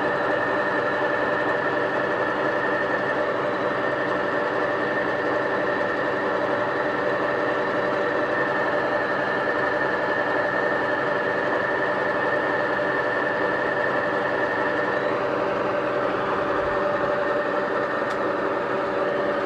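Milling machine resurfacing a cylinder head: a steady machine drone with a high whine from the cut, which stops about three-quarters of the way through.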